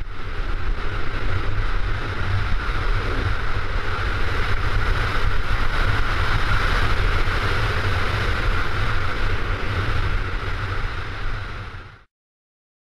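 Wind rushing over a GoPro Hero 3's microphone on a fast downhill ski run at about 78 km/h: a steady rush with a heavy low rumble and a higher hiss. It cuts off abruptly near the end.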